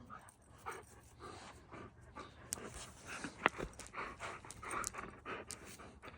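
An Irish setter panting hard, quick breathy puffs a few times a second. One sharp click about halfway through.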